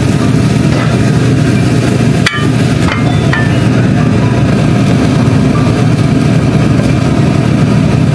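Loud steady low mechanical hum, such as a kitchen extractor fan makes, with a few light clinks of chopsticks and dishes about two to three seconds in.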